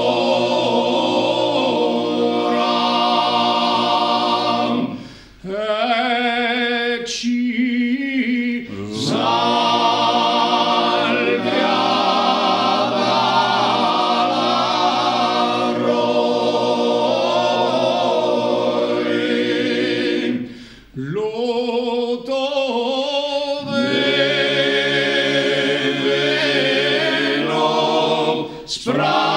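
Small Gallurese male choir singing a cappella in close harmony: long held chords in phrases, with short breaks between phrases about five seconds in and again about twenty-one seconds in.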